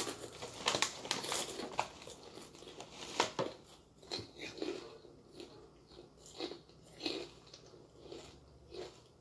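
Close-up eating sounds: a few sharp utensil clicks against a plate in the first three seconds or so, then steady chewing of lontong sayur, a soft mouth sound a little under twice a second.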